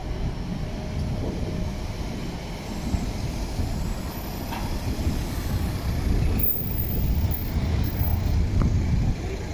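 Tram and street traffic rumbling past at a tram stop. A Konstal 105Na tram runs by close, and the rumble is loudest in the second half.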